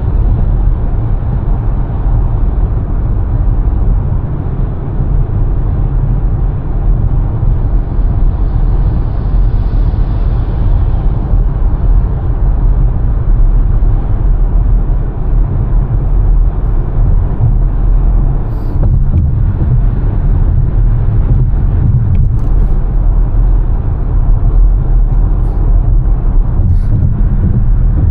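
Steady low rumble of a car driving: road and engine noise, with a few faint ticks in the second half.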